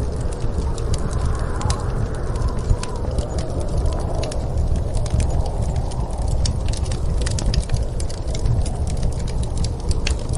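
Fireplace fire crackling with frequent sharp pops, over a steady low rumble of snowstorm wind.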